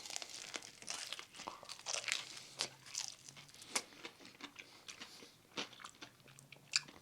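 A person eating fried chicken wings: an irregular series of crisp crunches and chewing as the breading is bitten through.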